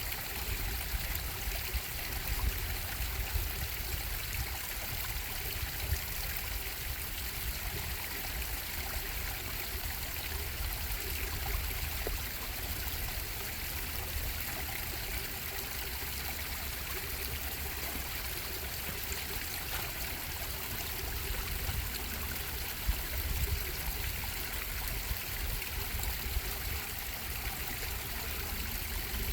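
Bubbling stream: water running and trickling steadily, with no break or change.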